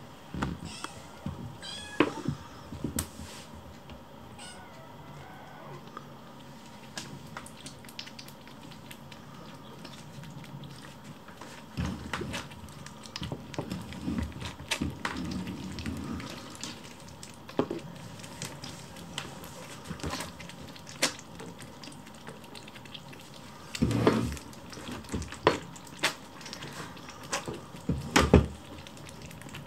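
Hungry kittens meowing for their food, several short calls, with sharp knocks and clinks of small ceramic saucers on a wooden floor scattered throughout, the loudest near the end.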